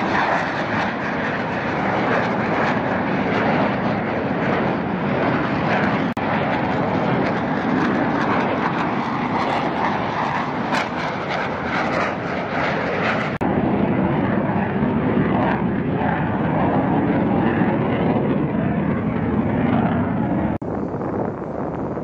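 Jet noise from an F/A-18 Hornet's twin turbofan engines as the fighter flies past: a loud, steady rushing roar with no tone to it. It changes abruptly a few times and is duller, with less hiss, after about 13 seconds.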